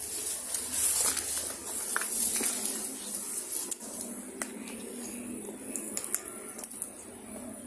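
Hiss of traffic on a nearby main road, fading after about three and a half seconds, with scattered light clicks and crackles and a faint steady high whine.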